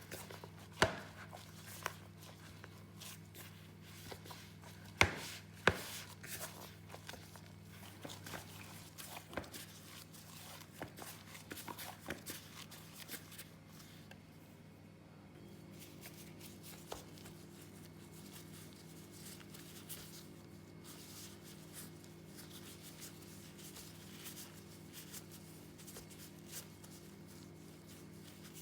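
Kitchen food-preparation handling sounds: a few sharp knocks and many light taps and clicks of utensils or containers, thinning out after about halfway, over a steady low hum.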